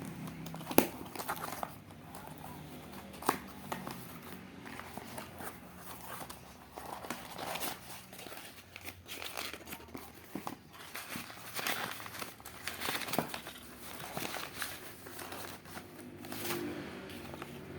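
Parcel packaging being crinkled and torn open by hand: irregular rustling and crackling with scattered sharp clicks, the loudest about a second in and another about three seconds in.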